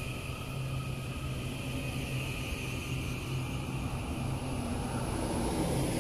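Taiwan Railways electric multiple-unit train rolling slowly past along the platform: a steady hum from its motors and running gear, with a constant high whine above it.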